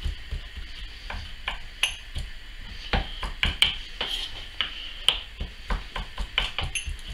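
Kitchen knife chopping capers on a wooden chopping board: irregular knocks of the blade hitting the wood, over a faint steady hiss.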